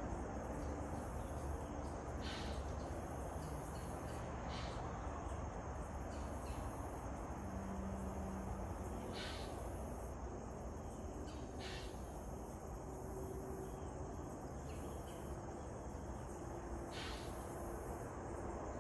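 Whitetail buck snort-wheezing: several short, breathy bursts of air forced through the nose, a few seconds apart, the buck's aggressive challenge call. Insects buzz steadily on one high note underneath.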